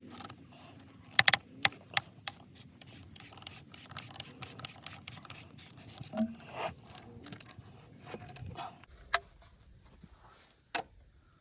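A rapid series of small clicks, taps and rattles from hands working plastic plumbing fittings and tools, with a couple of duller knocks partway through; the clicks thin out to a few single ones near the end.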